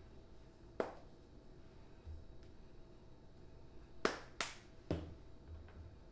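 Plastic seasoning shaker bottles being handled: four sharp clicks, one about a second in and three close together later on, the last with a dull knock, plus a few soft bumps.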